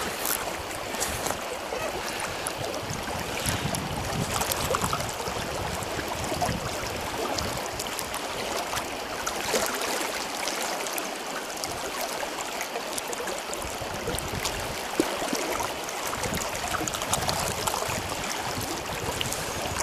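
Steady rush of a flowing river current, an even hiss of moving water with a few faint ticks and splashes.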